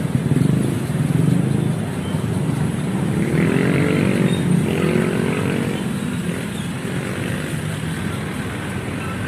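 Motorcycle engines running close by at a level crossing, with one revving up and easing off about three to five seconds in.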